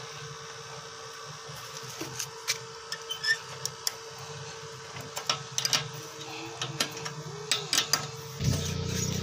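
A small motor running steadily, with scattered sharp clicks and knocks over it. Near the end a louder, lower engine rumble comes in.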